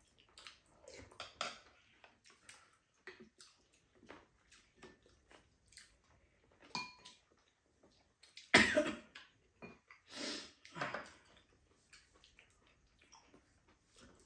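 Table sounds of two people eating: chopsticks and spoons clicking against ceramic bowls, and chewing. One louder sudden noise about eight and a half seconds in, and another shorter one about two seconds later.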